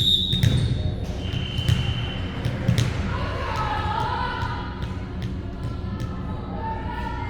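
A ball thumping repeatedly on a hard gym floor, with short high squeaks like sneakers on the court and voices echoing in a large hall.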